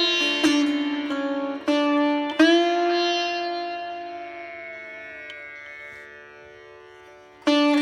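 Background instrumental music: plucked string notes with sliding pitch bends over a steady drone. About two and a half seconds in, one long note slowly fades away before new notes start near the end.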